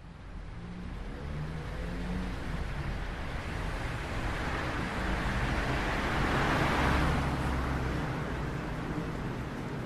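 A rushing sound like a car or road traffic going by, fading in from silence, swelling to its loudest about six to seven seconds in and then easing a little, with a low rumble underneath.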